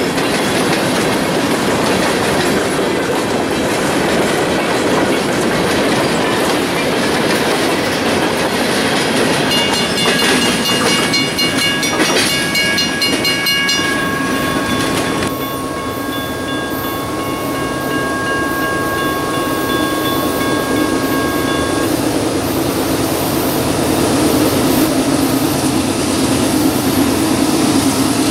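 Freight train of covered hopper cars rolling past, steel wheels running over the rails. From about ten seconds in, steady high tones hold for several seconds. Near the end a diesel locomotive's engine grows louder as it approaches.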